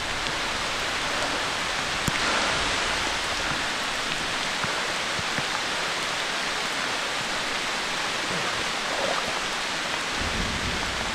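Steady hiss of water with no pitch and no rhythm, and a single faint click about two seconds in.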